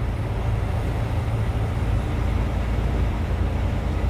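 Steady low drone of a semi truck's engine and road noise, heard inside the cab while driving.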